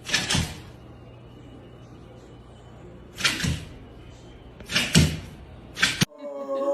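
A dog barking in single short barks, four of them a second or more apart. Near the end the sound cuts abruptly to a held, pitched sound.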